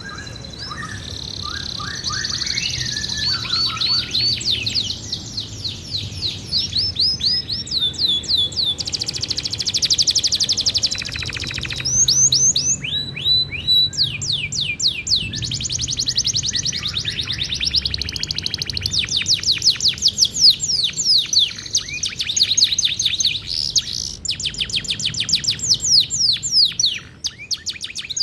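Domestic canary singing a long, continuous song of rapid trills and rolls, with fast repeated high sweeping notes that change pattern every second or two and include a dense buzzing roll around the middle.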